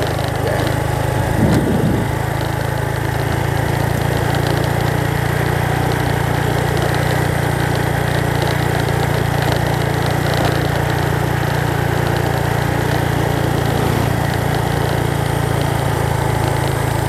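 Engine of a vehicle travelling along a road, running steadily with an even low sound and no change in speed.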